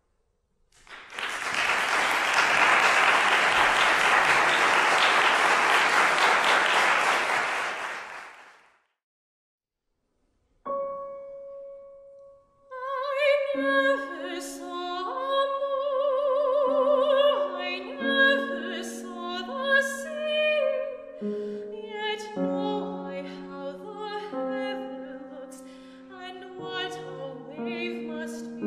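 Audience applause for several seconds, then a short silence. A single piano note follows, and a female classical singer begins a new song with vibrato over grand piano accompaniment.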